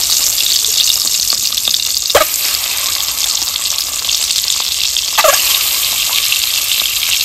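Whole boiled eggs sizzling as they shallow-fry in hot oil in an aluminium wok: a loud, steady hiss, broken by a couple of sharp clicks about two and five seconds in as more eggs go into the pan.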